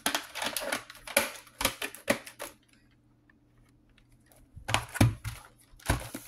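Plastic VHS cassettes and their sleeves being handled: a run of quick clicks and rustles, then a few dull knocks about five seconds in and once more near the end.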